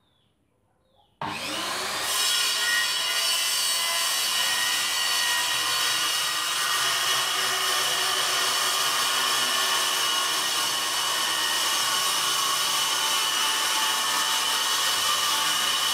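Handheld electric circular saw switched on about a second in, its motor whining up to speed, then running steadily as it cuts through a wooden board.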